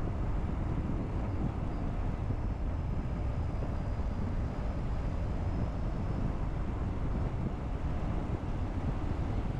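Car driving at a steady pace: a constant low rumble of road and engine noise.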